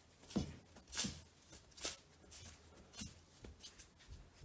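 A hand pressing and turning chicken strips in seasoned flour in a steel bowl: soft, irregular rustling and scrunching of the flour, a few strokes about a second apart, as the coating is worked into crumbly flakes.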